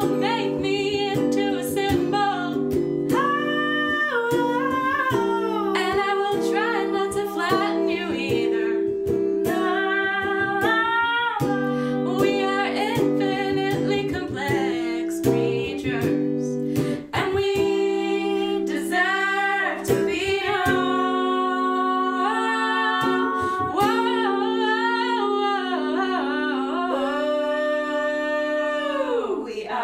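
Women singing over a strummed electric guitar, with sustained notes; near the end a long held sung note slides down in pitch.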